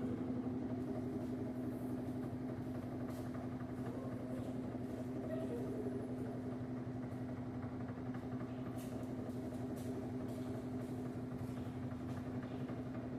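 LG Turbo Drum washing machine running with a steady, unchanging hum.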